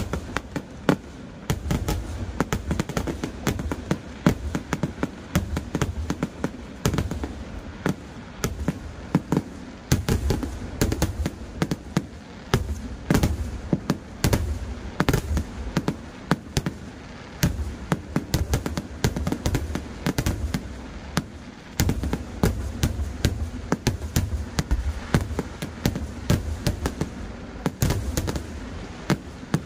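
Kerala temple-festival fireworks (vedikettu) going off: a rapid, unbroken string of sharp bangs, several a second, over a low rumble.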